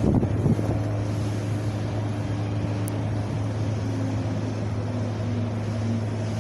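Steady wind rushing, with a constant low hum underneath and faint wavering tones above it. A few knocks come right at the start.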